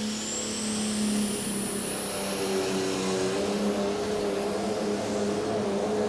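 Pro Stock pulling tractor's turbocharged diesel engine running hard and steady under load on a pull. A high whine climbs in pitch over the first two seconds.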